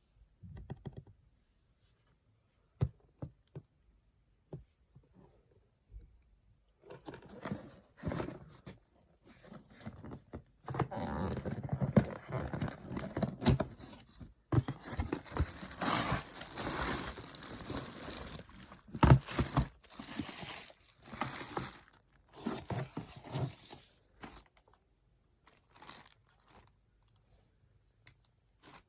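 Product packaging being opened by hand: a few light taps and clicks, then a long stretch of rustling, crinkling and tearing that dies back to a few taps near the end.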